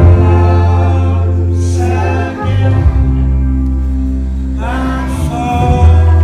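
Background music: a song with a singing voice over sustained low bass notes.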